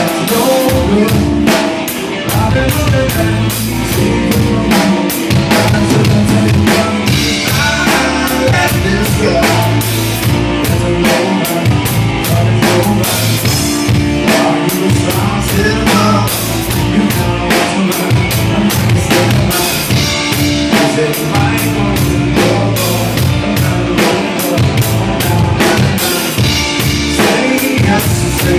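A rock band playing live, with the drum kit loud and up front: a steady run of kick drum and snare hits over the rest of the band.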